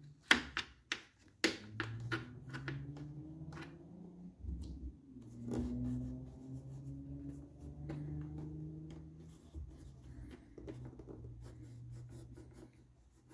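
A small pick-style hand tool clicking and scraping as trim material is pushed and tucked into the edge of a car's door opening, with a quick run of sharp clicks in the first two seconds and softer rubbing after. A low wavering hum sits underneath.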